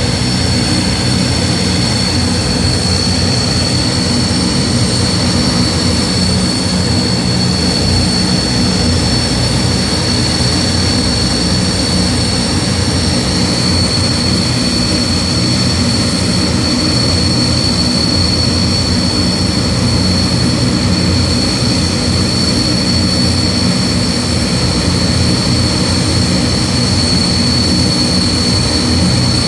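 Antonov An-12's four Ivchenko AI-20 turboprop engines running steadily on the ground: a loud, even propeller drone under a steady high-pitched turbine whine.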